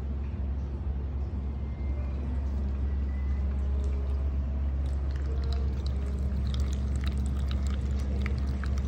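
Water trickling and splashing from an electric cat water fountain, starting about five seconds in, over a steady low hum.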